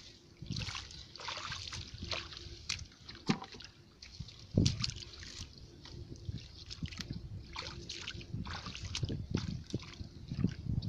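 Shallow muddy water sloshing and splashing in irregular bursts as someone wades through it and works a bamboo plunge-basket fish trap, with one louder splash about four and a half seconds in.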